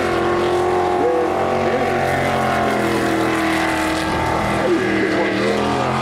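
V8 jet sprint boat engine running hard as the boat races through the course, its note holding fairly steady, dipping a little midway and rising again near the end, over the rush of the jet's spray.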